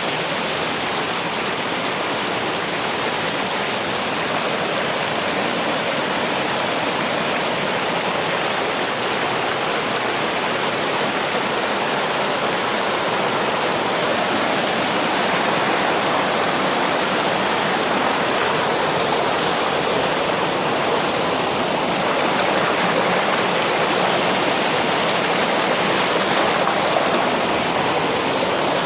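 Rushing water of a mountain waterfall and creek: a steady, unbroken rush of falling water that keeps an even level throughout.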